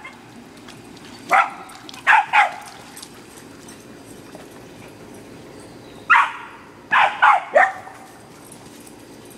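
Dogs barking in short sharp barks: one about a second and a half in, two in quick succession just after two seconds, then a single bark about six seconds in followed by three rapid barks a second later.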